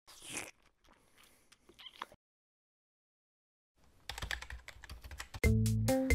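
Keyboard typing sound effect: rapid key clicks from about four seconds in, after a short swish and a few scattered clicks at the start. Music with a steady bass comes in about a second before the end.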